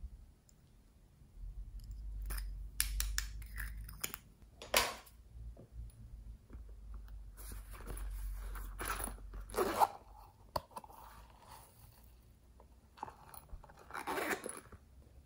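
Plastic makeup containers, a pineapple-shaped lipstick tube and a pineapple-shaped compact, being handled: scattered clicks and taps with short scraping rustles, the loudest about ten seconds in.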